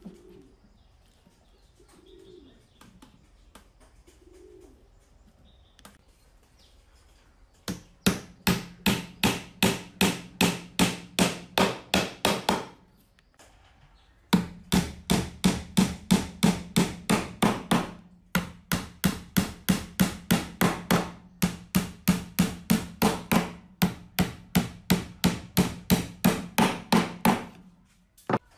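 Hammer driving small nails through a thin wood-grain panel into a wooden box: rapid blows, about three to four a second, in several runs of a few seconds each, with the box giving a low ring under each blow. Before the hammering starts, about a quarter of the way in, a dove coos faintly a few times.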